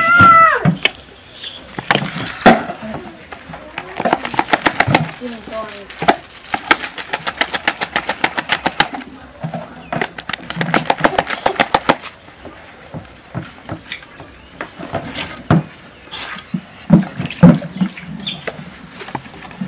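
Rapid runs of knocking clatter as cooked millet TZ is moulded in a bowl, in three bursts of a second or two each, with scattered single knocks after them. A cat meows briefly at the very start.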